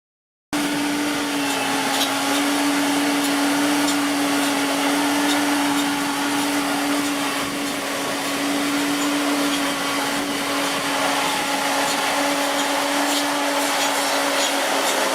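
A machine running steadily: an even whirring noise with a constant hum, cutting in abruptly just after the start.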